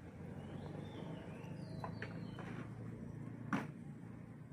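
A single sharp click about three and a half seconds in, over a steady low hum, with a few faint high chirps or squeaks before it.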